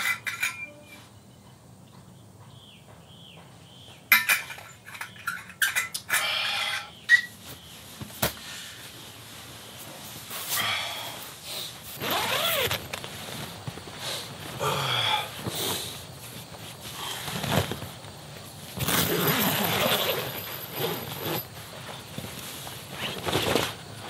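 Morning forest ambience with animal and bird calls: repeated calls that glide in pitch, the longest about two seconds, sounding at intervals through the second half. A few sharp clicks and clatters of handling come between about four and seven seconds in.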